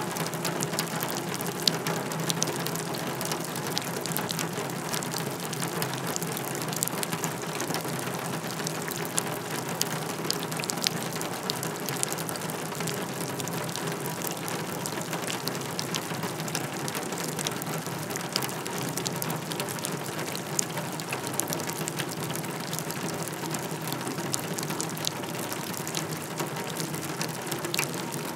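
Rain falling on a wheelbarrow: a steady, dense patter of drops with many sharper individual drop hits standing out.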